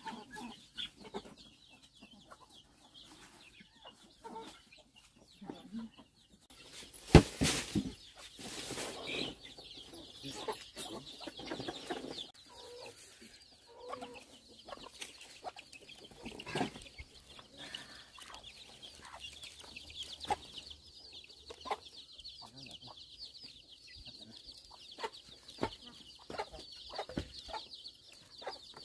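Chickens clucking, with scattered short clicks and knocks of handling and one loud clatter about seven seconds in. A steady high-pitched buzz sets in from about nine seconds on.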